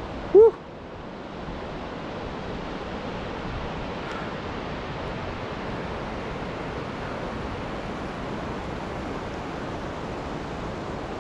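Steady, even rushing of the Baspa, a fast mountain river, with a brief vocal sound about half a second in.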